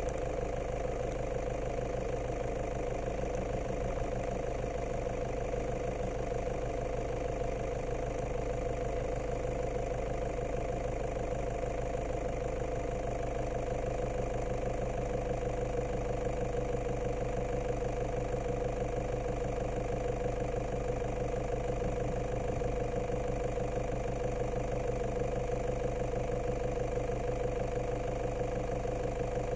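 A vehicle engine running steadily at idle, with an even, unchanging hum.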